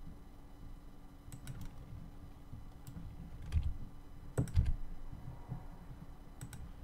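Computer keyboard keys and mouse buttons clicking now and then, scattered single and double clicks with a couple of heavier key thuds near the middle, over a faint steady hum.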